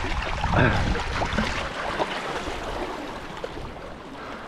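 Seawater washing and trickling over shoreline rocks, with some wind on the microphone, growing fainter toward the end.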